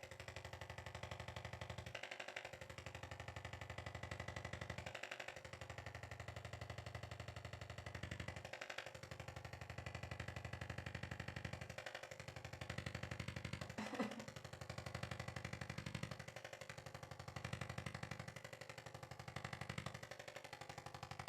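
Electric percussion massager pulsing rapidly against the body, with a short break every few seconds as it is moved, and one sharp click about 14 seconds in.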